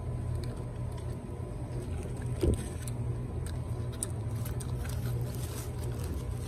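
Paper sandwich wrapper rustling and crinkling in small scattered bursts over a steady low rumble, with one thump about two and a half seconds in.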